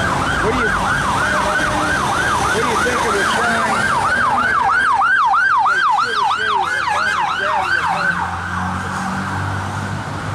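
Emergency vehicle siren in a fast yelp, sweeping up and down about three times a second, stopping after about eight seconds, over the steady noise of highway traffic.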